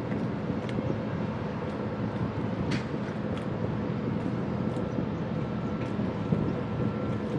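Steady drone of a boat's engine with a low, even hum and a few faint ticks over it.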